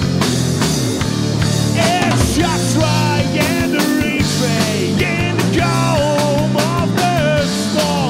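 Live rock band playing a song with a steady beat; a man starts singing into the microphone about two seconds in.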